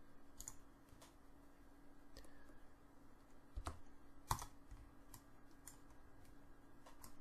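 Faint, scattered clicks of a computer mouse, about seven, the loudest about four seconds in, over a faint steady low hum.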